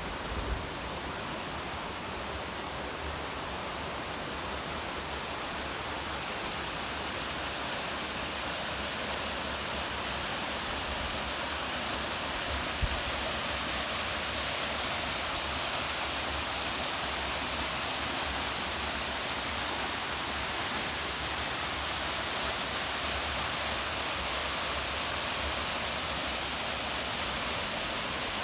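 Waterfall rushing: a steady roar of falling water that grows louder over the first ten seconds or so, then holds even.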